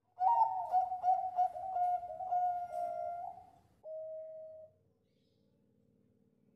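Bangkok-strain zebra dove (perkutut) singing its cooing song: a quick run of about eight short rolling notes, then after a brief pause one longer held final note.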